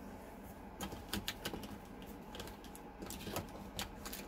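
Irregular light clicks and taps of small tools and wire being handled on a hard bench while setting up to solder, a quick cluster about a second in and scattered single clicks after, over a faint steady hum.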